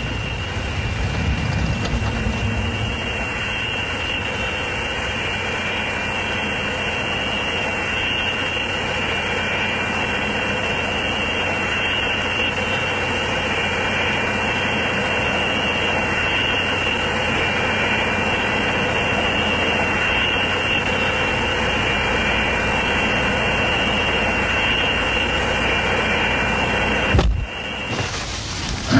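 Twin-engine propeller plane's engines running on the ground: a steady, unchanging drone with a high whine above it. It cuts off with a thump near the end.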